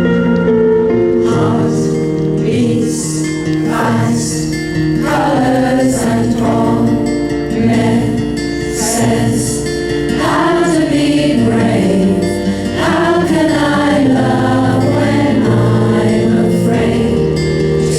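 Music: a group of voices singing together over sustained instrumental backing.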